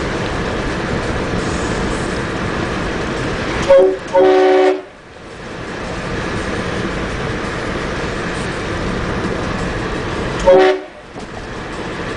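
Train horn on a Mitsubishi Galant sounding a chord of several tones: two quick blasts about four seconds in, the second longer, then one short blast near the end. Under the blasts there is a steady background noise.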